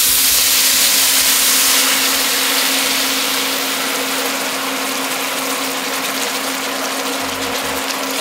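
White wine poured into a hot enameled cast-iron Dutch oven of seared goat neck, deglazing it: a loud, steady hiss and sizzle as the wine boils off in steam, strongest in the first couple of seconds and then easing off a little.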